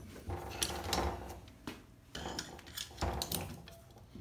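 Metal clinks and scraping from a C-clamp valve spring compressor and valve spring parts on an air-cooled cylinder head, as a spring is compressed and the valve keepers are set. Light metallic clicks and clatter come in two bunches, about a second in and again about three seconds in.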